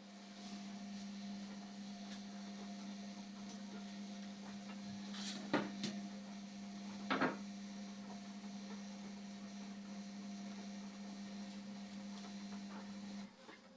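Indesit washing machine running mid-cycle with a steady electrical hum that cuts off abruptly near the end. Two short sharp knocks come in the middle.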